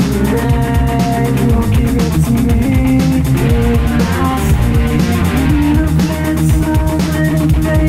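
Music: a guitar-led instrumental with bass and a steady drum beat.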